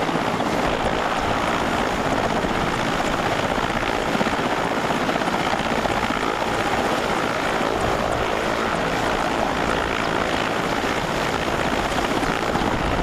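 Mil Mi-17 helicopter's twin turboshaft engines and main rotor running steadily while it sits on the ground being loaded, a constant loud roar with no change in pitch or level.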